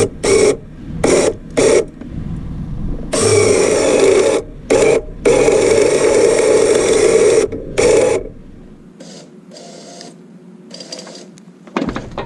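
Trailer-mounted 3,500 lb electric winch reeling in its cable under load to drag a log. It is switched on and off in several short bursts, then runs for about one and then two seconds, and is much quieter after about eight seconds.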